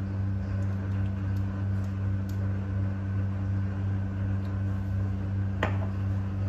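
Steady low electrical hum, like an appliance running, with a faint sharp click about five and a half seconds in.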